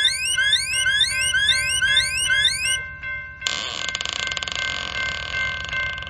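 Cartoon railroad-crossing warning sound effect: a quick series of rising whooping chirps, about two a second, over steady held tones. The chirps stop just under three seconds in. About half a second later a steady hissing rush starts under the held tones.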